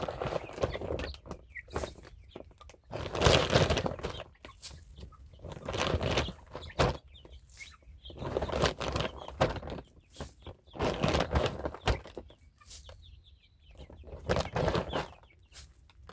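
Chickens clucking and calling, amid repeated bursts of rustling and handling noise every second or two.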